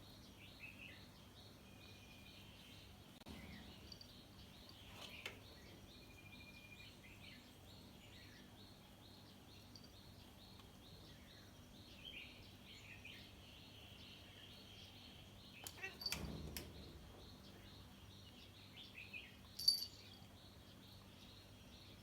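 Faint, quick high-pitched chirping over quiet background noise, with a few knocks about three-quarters of the way through and a sharp click near the end.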